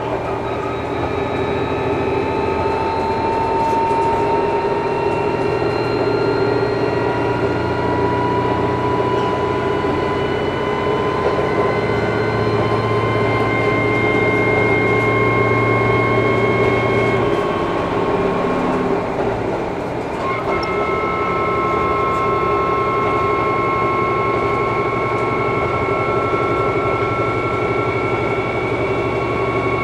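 Cabin running sound of a KiHa 11-100 diesel railcar accelerating. The engine and transmission whine climbs slowly in pitch over the running noise. About two-thirds of the way through it eases off for a moment, then pulls again and keeps rising.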